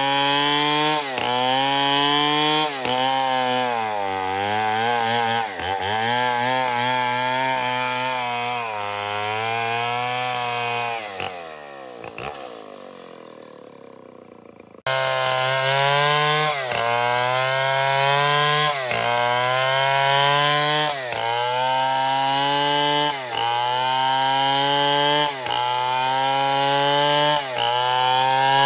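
Stihl 070 two-stroke chainsaw at full throttle ripping a merbau log lengthwise into planks, its engine note sagging and recovering about once a second as the chain bites. About eleven seconds in, the revs fall away and the sound fades. Near fifteen seconds it cuts back in abruptly, running at full throttle and cutting again.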